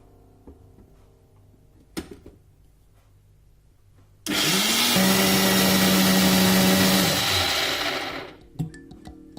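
Electric kitchen blender switched on about four seconds in. Its motor spins up quickly to a loud, steady whir, runs for about three seconds, then cuts off and winds down. A single sharp click comes earlier, about two seconds in.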